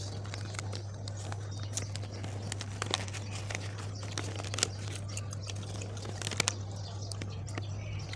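Paper wrapper crinkling and rustling as a banh mi is handled, with scattered short sharp clicks, over a steady low hum.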